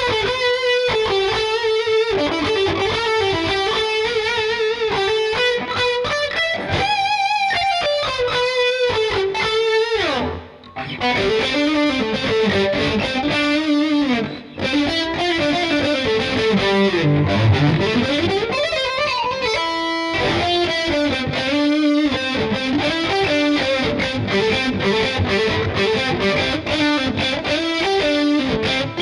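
LTD EC-401FM electric guitar played through heavy distortion: lead lines of quick runs and held, vibratoed notes. The sound drops out briefly about ten seconds in and again near the middle, and a little past halfway one note swoops down in pitch and back up.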